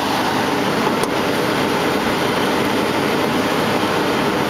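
2002 Chevrolet Express van's 5.7-litre Vortec V8 idling, a steady even running noise heard in front of the grille.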